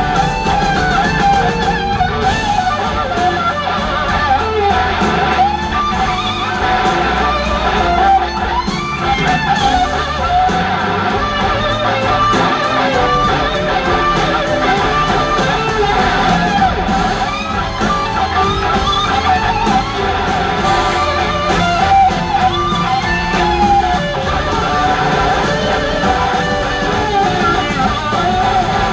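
Live blues-rock band playing an instrumental passage, an electric guitar carrying a wavering lead line over bass and drums.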